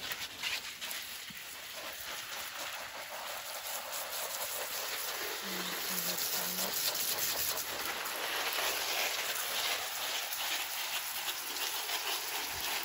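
Garden watering spray hissing steadily and pattering onto potted plants and compost, getting louder about five seconds in as the spray is turned onto the pots.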